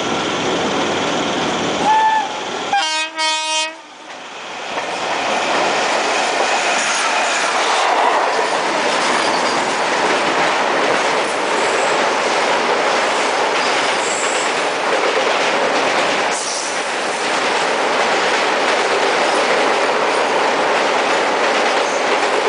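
Two trains passing on a rail bridge: a short double train-horn blast about three seconds in, then the steady loud rush and clickety-clack of a WAG7-hauled rake of BTPN oil tank wagons running past alongside a moving MEMU, wheels rattling over the bridge track.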